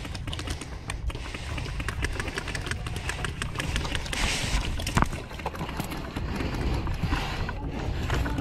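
Airsoft guns firing, heard as irregular runs of sharp mechanical clicks and short bursts, over a steady rumble of wind on the microphone. A single sharper knock comes about five seconds in.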